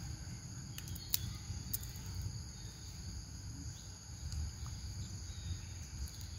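Steady high-pitched insect chorus, over a low rumble, with a few sharp clicks about a second in.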